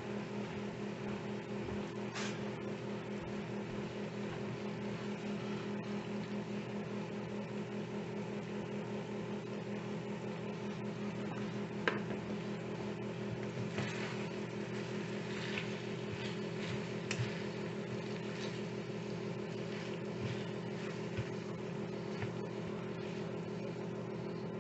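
Ground beef and taco sauce simmering in a nonstick frying pan, a soft steady sizzle under a steady low hum, with a few faint clicks. A spatula starts stirring through the meat near the end.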